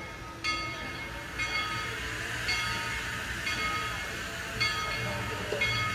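Steam locomotive bell ringing steadily, about one strike a second, over the low rumble of the train.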